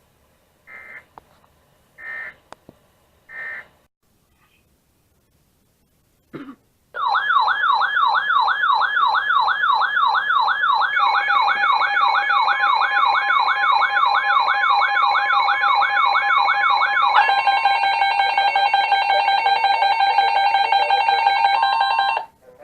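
Emergency Alert System alert tones: three short data bursts of the digital header, then a loud warbling tone sweeping up and down about three times a second, joined by a steady tone. About ten seconds later the warble gives way to a steady multi-tone alert tone that cuts off near the end.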